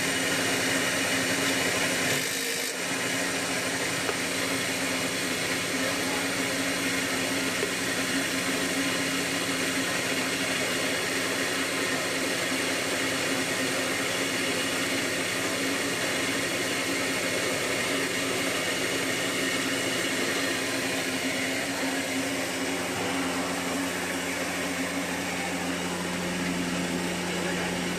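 Combined rice mill (huller and polisher in one machine) running steadily while milling rice: an even machine whirr with a steady low hum.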